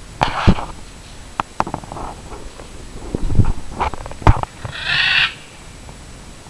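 Short bird calls from a wild turkey and a blue-and-gold macaw: a brief harsh call near the start, several sharp clicking notes, and a half-second ringing call about five seconds in.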